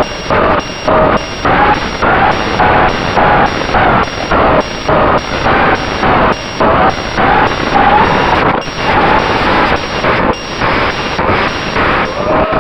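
Racing drone beeping repeatedly, about two short high-pitched beeps a second, stopping near the end, over a steady noisy background.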